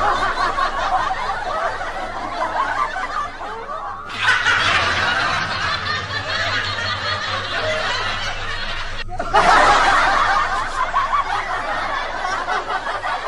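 Several voices laughing and snickering together, breaking off sharply for a moment about four seconds in and again about nine seconds in.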